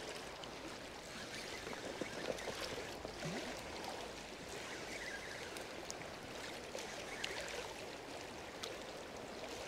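Steady wash of choppy fjord water against a rocky shore.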